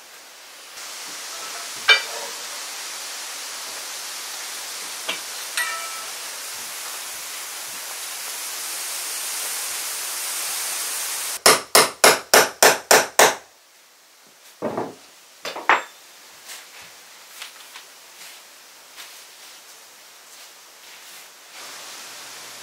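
Hammer blows on a wooden floor: a few single metallic-ringing knocks, then a fast run of seven blows, about four a second, about halfway through, followed by two more knocks. Faint taps and rustles of newspaper being laid over the wood shavings come near the end.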